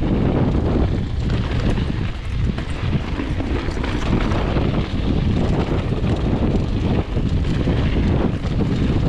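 Wind buffeting the microphone of a mountain bike's handlebar camera on a dirt singletrack descent, a steady low rumble with scattered light clicks and rattles from the bike over the rough trail.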